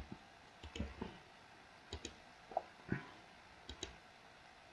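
Quiet computer mouse button clicks: about half a dozen short clicks, some in quick pairs, spread over the first four seconds.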